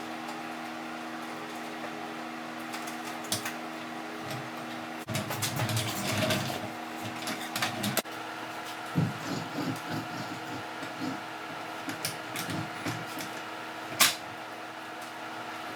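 Scattered metal clinks and knocks of hand-tool work over a steady mechanical hum. A busier stretch of clattering comes about five seconds in, and one sharp knock comes near the end.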